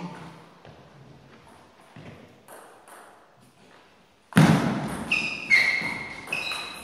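Table tennis ball tapped lightly during a quiet lead-up to a serve. About four seconds in comes a sudden loud knock as play starts, then sharp ringing pings of the celluloid ball striking bats and table in a short rally.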